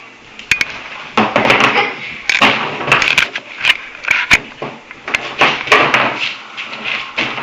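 Small rocks clattering and scraping on a hard surface as a puppy paws and noses at them, with many sharp irregular clicks and short rattles.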